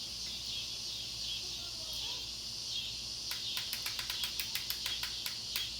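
Steady chirring of crickets or similar insects. About three seconds in, a quick run of a dozen sharp clicks, about five a second, lasts a little over two seconds.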